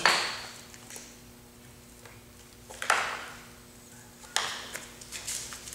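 Handling sounds from the wrapped Clock Spring composite coil being squared up by hand on the pipe: a few brief rustling swishes, at the start, about three seconds in and again after four seconds, over a faint steady hum.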